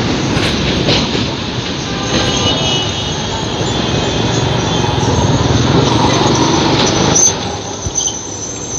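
Alexandria's blue-and-cream tram rolling in close past, its steel wheels rumbling and grinding on the rails with a thin high squeal. The noise drops off about seven seconds in.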